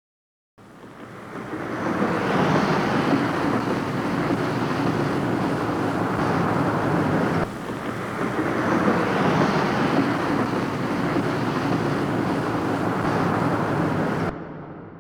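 A steady rushing noise, heard twice back to back: it fades in over the first two seconds, breaks off and restarts about halfway through, and stops abruptly near the end.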